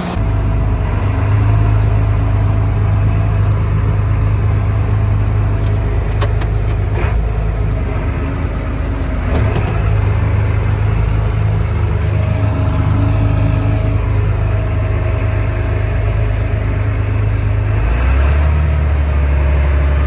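John Deere 8410 tractor's diesel engine running steadily while pulling the grain cart. The engine note drops lower near the end.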